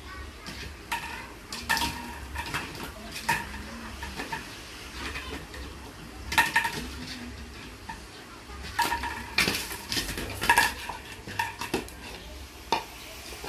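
A bowling pin being knocked and batted about by a puppy at play, giving irregular hollow clattering knocks, each with a brief ring, coming in clusters.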